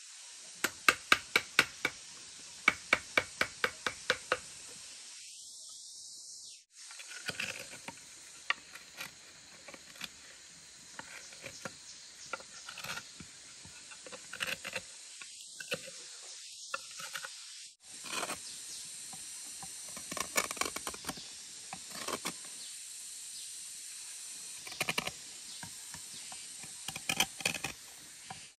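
Bamboo being struck during woodwork: two quick runs of sharp knocks, about four a second, in the first few seconds, then scattered lighter knocks and scraping, over a steady background hiss.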